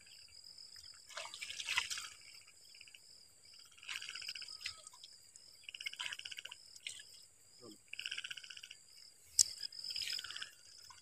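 Frogs calling from the pond in short croaks about every two seconds, over a steady high trill of insects. A sharp click stands out about nine seconds in.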